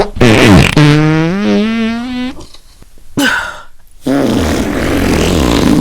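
Comedy fart sound effect: a long pitched fart that rises in pitch, a short blast about three seconds in, then a long raspy fart from about four seconds in.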